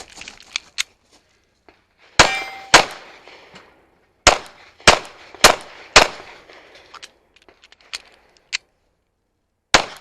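Backup pistol fired in a stage run: a pair of shots, then four evenly spaced shots about half a second apart, then after a pause a fainter crack and one more shot near the end. The first shot is followed by a brief metallic ring.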